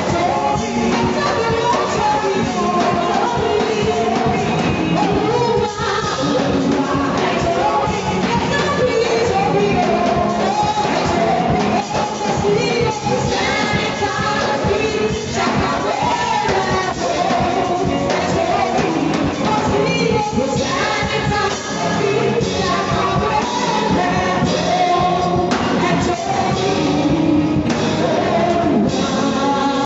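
Worship music with singing, steady and continuous, cutting off abruptly at the end.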